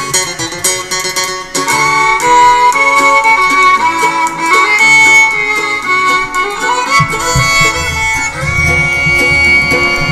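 Instrumental opening of the programme's theme song: a melody line over plucked notes, with a low beat coming in about seven seconds in.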